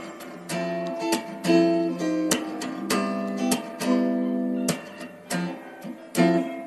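Background music of strummed acoustic guitar chords, with a sharp strum roughly every half second over ringing chords.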